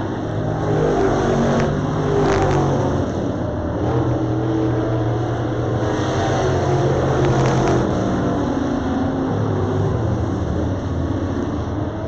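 Several dirt late model race cars running laps together, their engines rising and falling in pitch as they go through the turn and back onto the throttle.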